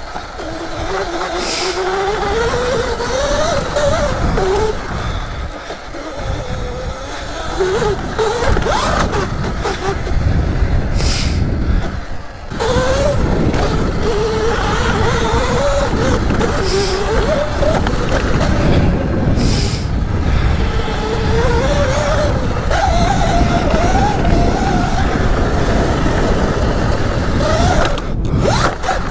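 Sur Ron electric dirt bike's motor whine, rising and falling with the throttle as it rides off-road, over rushing wind and tyre noise. It eases off briefly about twelve seconds in, then picks up again.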